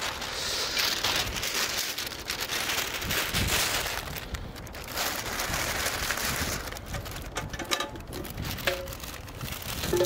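Close, irregular rustling and crackling handling noise, loudest in the first few seconds.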